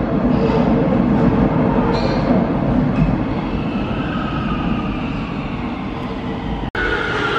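Warsaw Metro train pulling out of an underground station, its running rumble fading as it goes into the tunnel, with a thin high whine gliding down in pitch. Near the end a split-second dropout, then a stronger falling whine from another metro train.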